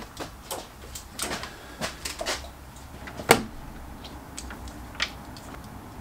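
Scattered small clicks and knocks of things being handled in a workshop, with one sharper knock a little past three seconds, over a low steady hum.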